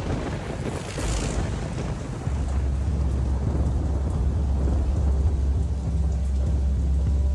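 Tense dramatic soundtrack: a rushing swell about a second in, then a deep, steady rumbling drone that comes in about two seconds in and holds.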